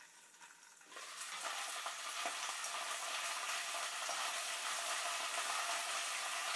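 Chopped cabbage sizzling in garlic oil in a frying pan while it is stirred with wooden chopsticks. The sizzle jumps up about a second in, as the lid comes off the pan, and then holds steady.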